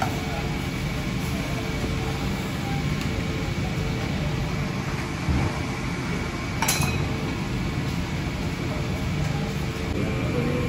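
Stick (arc) welding: a steady crackling hiss from the welding arc, with one sharp click about two-thirds of the way in.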